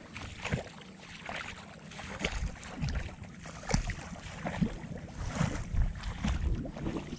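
Footsteps wading through shallow flooded rice-paddy water: irregular sloshing splashes, about one a second.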